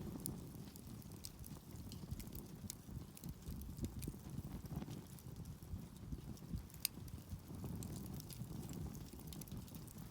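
Wood campfire burning: scattered sharp crackles and pops of the wood over a steady low rumble.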